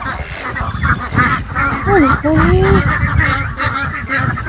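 A flock of white Pekin ducks quacking together in a steady chatter of many overlapping calls.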